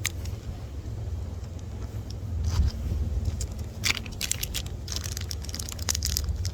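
Crinkling and clicking as a packet of faceted bead strands is handled, in a cluster of short, sharp crackles that starts about two and a half seconds in, over a steady low rumble.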